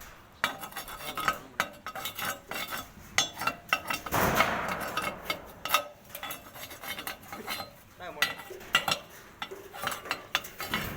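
Irregular metallic clinks and knocks of metal parts or tools being handled, with a brief louder rushing noise about four seconds in.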